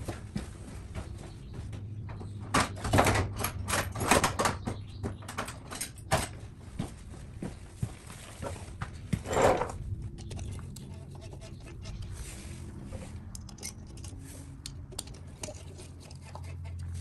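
Small metal parts and a hex key clinking and tapping as clutch springs and spring bolts are fitted to the clutch pressure plate. Quick clicks come in a cluster a few seconds in, then one louder knock about halfway, then sparse faint ticks over a low steady hum.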